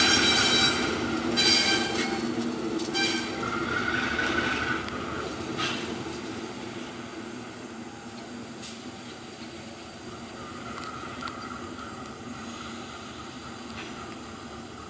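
Metal-on-metal wheel squeal from a slow-moving train, in several screeching bursts during the first few seconds, over the steady running of a GE B23-7 diesel locomotive's engine at low power, which carries on more quietly after the squeal stops.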